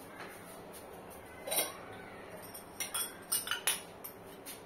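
Steel ladle clinking against the inside of a steel pot while stirring thin rava dosa batter: one clink about a second and a half in, then a quick run of several clinks around three to four seconds in.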